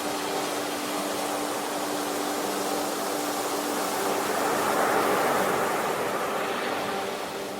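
Sea waves washing in, a steady rush that swells to a peak about five seconds in and eases off near the end, with a faint steady hum underneath.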